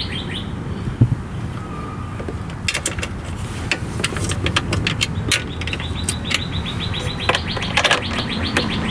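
Scattered sharp clicks and rattles of wiring and plastic connectors being handled, over a background of birds chirping, with a rapid high trill about two-thirds of the way through.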